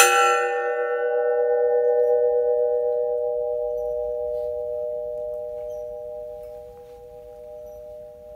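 Gas cylinder hung as a substitute church bell, struck once and left to ring with a clear metallic tone. The bright upper overtones fade within about three seconds, while a few lower, steady pitches keep ringing and die away slowly.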